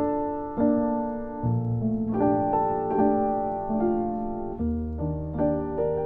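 Slow piano music: notes struck one after another and left to ring out, over deep bass notes.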